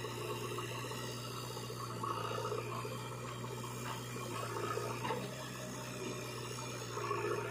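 Diesel engines of a JCB 3DX backhoe loader and a Sonalika DI 740 tractor running steadily while the loader works.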